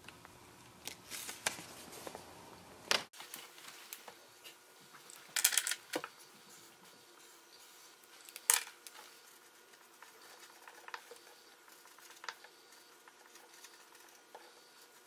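Paper and marker handling on a desk: faint rustling and scratching with scattered sharp clicks and taps, including a quick cluster about five and a half seconds in. A low background hum stops abruptly about three seconds in.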